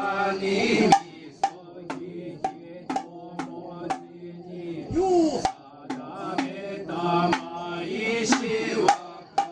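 Kagura accompaniment: a drum struck steadily about twice a second under a man's sung chant.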